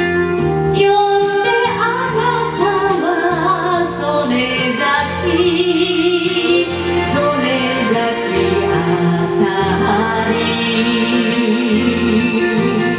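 A woman singing an enka ballad with wavering vibrato over a karaoke backing track; the voice comes in about a second and a half in.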